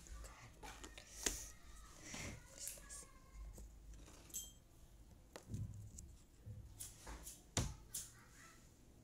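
Jigsaw puzzle pieces handled and pressed into place on the puzzle board: faint, irregular clicks and taps with light rustling.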